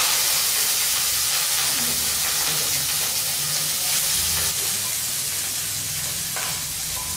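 Hot oil with a spice tempering sizzling steadily in a kadhai as boiled rice is tipped in, with a few light scrapes of a spatula near the end.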